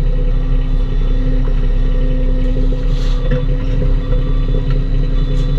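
Bobcat E10 mini excavator's three-cylinder diesel engine running steadily, with a couple of faint knocks, about three seconds in and again near the end.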